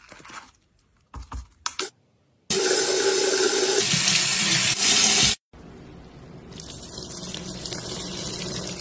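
Plastic packaging crinkling a few times, then tap water running loudly over a squishy ball held in the hands for about three seconds, stopping suddenly. After that comes a quieter, steady wet hiss that slowly grows, from a soaked sponge being squeezed in foamy water.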